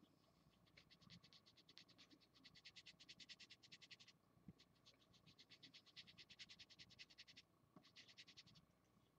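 Felt-tip marker scratching across paper while colouring in, in rapid back-and-forth strokes, faint. The strokes come in three runs with short pauses between them, the last one brief.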